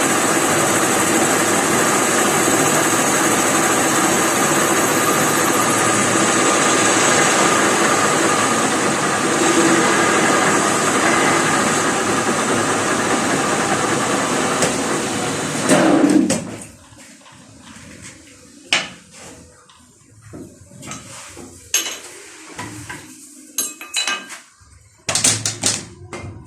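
Metal lathe running steadily, then stopping about sixteen seconds in. After that come scattered sharp metal clinks and taps.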